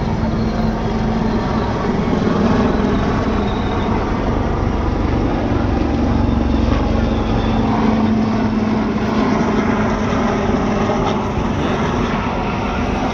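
Engines of aerobatic display aircraft flying past overhead: a steady rumble with a humming tone, swelling about six to nine seconds in as they pass.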